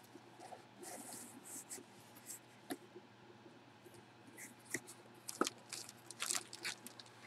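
Faint rustling and crinkling of packaging being handled, with a few light clicks.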